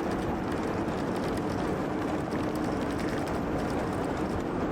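Truck driving: steady engine and road noise.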